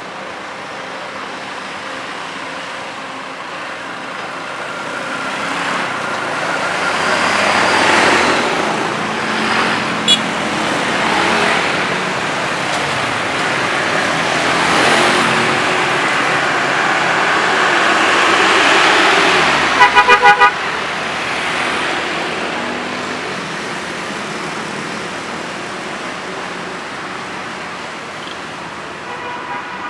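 Coach buses and other traffic passing slowly, their engine and tyre noise swelling as each goes by. About twenty seconds in, a horn gives a quick run of about five toots, the loudest sound. A single short beep comes about ten seconds in.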